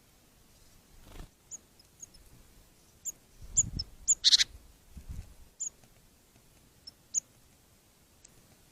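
A small bird chirping: short, high, separate chirps scattered irregularly, with a brief harsher squeak about four seconds in and a few low thuds of movement around it.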